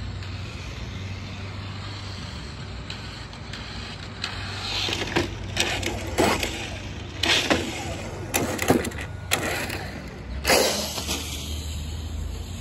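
Brushless-powered Traxxas TRX-4 Sport RC truck driving on pavement, its motor whine and tyre noise coming as a string of short loud bursts from about five to ten seconds in as it passes close by, over a low steady hum.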